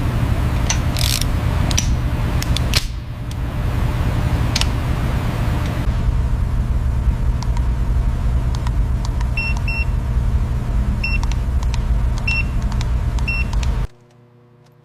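Car engine running with a steady low rumble; short high beeps repeat in the second half, and the sound cuts off suddenly near the end.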